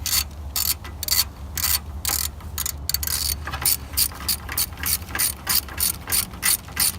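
Hand socket ratchet worked in quick back-and-forth strokes, each stroke a short burst of clicking, about three to four a second.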